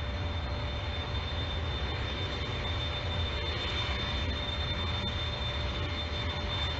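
A presidential helicopter's turbine engines running steadily on the ground, a constant high whine over a low rumble.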